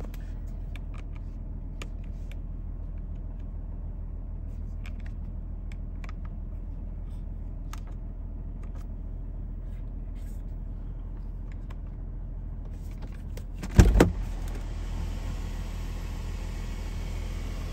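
The Jaguar F-TYPE's 340 hp supercharged 3.0L V6 idling steadily in park, heard from inside the cabin as a low hum. A little before the last few seconds comes a sharp double clack as the driver's door is unlatched and opened, and the background then grows brighter and airier.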